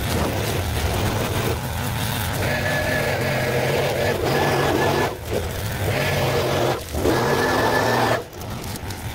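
Stihl FS 220 two-stroke brushcutter running hard, with a thin high whine over the engine note; the sound dips briefly three times in the second half.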